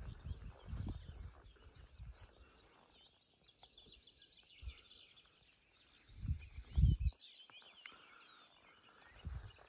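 Birds singing in short chirping phrases, with a few low thumps; the loudest thump comes about seven seconds in.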